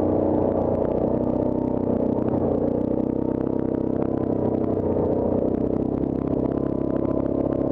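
Yamaha Grizzly ATV engine running at a steady speed while riding a rough dirt trail, with rattling and clatter from the machine and its rack over the bumps.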